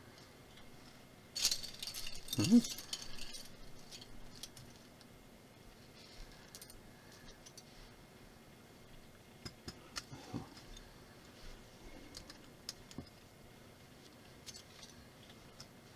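Plastic building bricks spilled onto a felt table mat and rattling together, with a brief squeak about two and a half seconds in. After that come scattered light clicks of bricks being handled and snapped together.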